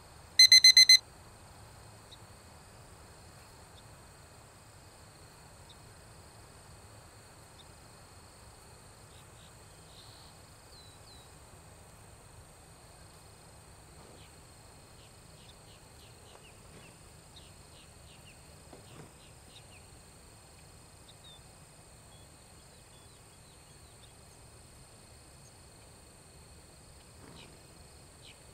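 A short electronic alarm-type beep about half a second into the clip, part of a pair repeating about every 30 seconds, typical of an interval timer marking observation points. Then faint outdoor ambience: a steady high-pitched insect drone with pulsing chirps, and a few short faint chirps near the middle.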